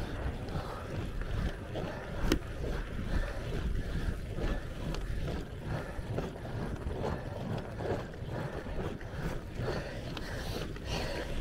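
Wind buffeting the microphone and low rumble from a road bike rolling on an asphalt lane, with a single sharp click about two seconds in.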